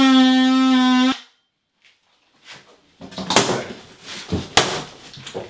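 Cordless oscillating multi-tool cutting through shower wall board, running with a steady buzz that cuts off about a second in. After a short pause come irregular knocks and cracks as the cut-out square of board is pushed in and broken free of the wall.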